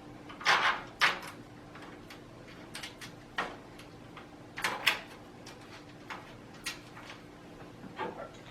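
Irregular clicks, knocks and scrapes of screws and metal parts being handled and screwed in by hand while a liquid-cooling radiator is mounted in a PC case, the loudest knocks about a second in and near the middle, over a faint steady hum.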